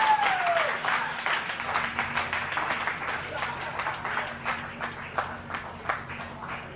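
Roomful of people applauding, with one cheering whoop at the start. The clapping gradually thins out and gets quieter.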